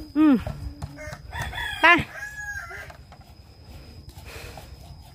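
A rooster crows once, a pitched call of several notes ending in a held tone, about a second and a half in. A short, loud pitched cry comes just before it at the start.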